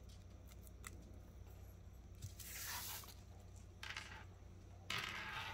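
A gold-plated brass charm bracelet being unfastened and handled: a few faint clicks of the toggle clasp and chain at first, then soft rustling swishes, and the chain links and charms clinking louder near the end.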